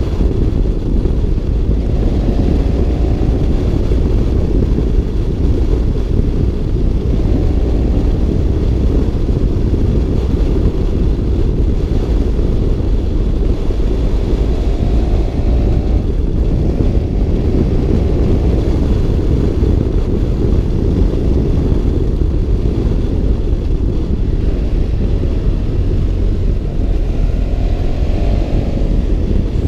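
BMW F650 GS Twin motorcycle's parallel-twin engine running on the move under a heavy low rumble, its note rising again and again as it pulls up through the revs.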